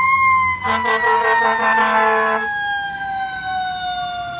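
Fire truck siren peaking and then slowly winding down in pitch. Partway through, a blast of about two seconds from the truck's air horn sounds over it.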